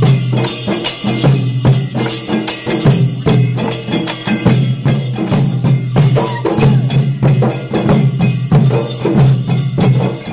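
Dollu Kunitha troupe beating large barrel drums (dollu) together in a fast, dense rhythm, with a steady low drone underneath.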